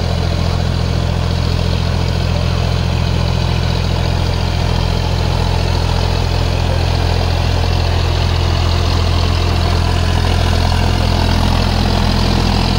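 John Deere 5050D tractor's three-cylinder diesel engine running steadily at an even speed.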